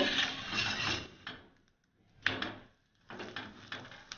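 A spatula scraping across a hot tawa as it slides under a rice roti and flips it over. There is a sharp knock a little over two seconds in and more scraping and light taps near the end.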